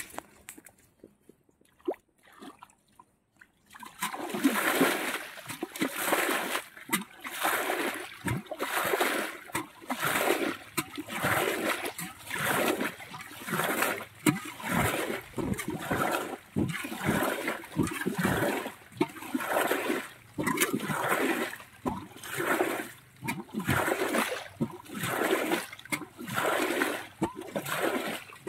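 Pond water splashing in a regular rhythm, about once a second, starting about four seconds in after a few faint knocks.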